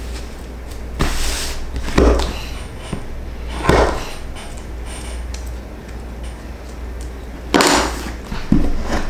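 Leather pieces and small hand tools being handled on a wooden workbench: a handful of short rustles and knocks, the loudest about two seconds in and again near the end, over a steady low hum.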